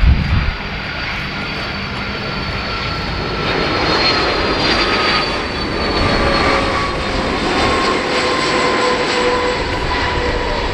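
Kawasaki C-2's two General Electric CF6 turbofan engines whining as the transport taxis past on the runway. The whine tones slide slowly lower in pitch as it goes by, and it grows a little louder a few seconds in.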